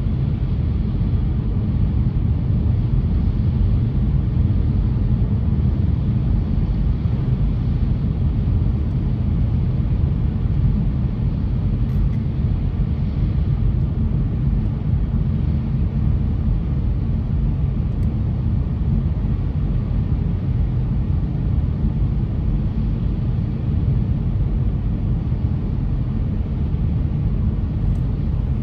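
Steady low rumble of a car driving, with road and engine noise and no distinct events.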